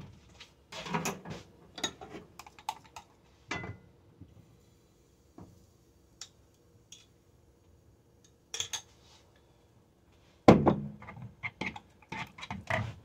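Kitchen clatter: utensils, dishes and a frying pan being handled, with scattered clinks and knocks and one louder knock followed by a cluster of smaller clicks near the end.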